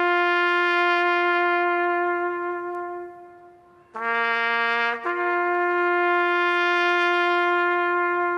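A military bugle playing a slow call. A long held note fades out, then about four seconds in a short lower note rises to a second long held note that fades away near the end.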